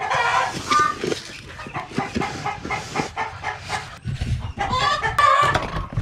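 Poultry clucking and calling in short, repeated calls, loudest just at the start and again about five seconds in.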